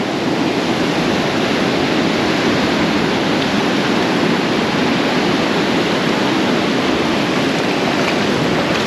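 Gulf of Mexico surf washing up the beach: a loud, steady rush of breaking waves.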